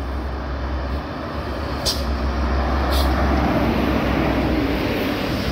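A heavy bus approaching and passing on the highway, its engine and tyre noise building to a peak midway through, over a deep rumble. Two short hisses cut in about two and three seconds in.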